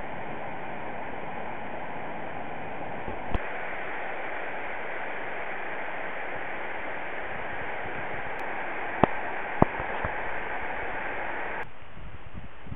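Steady rush of falling and flowing water, with a few brief sharp clicks; the rushing thins out near the end.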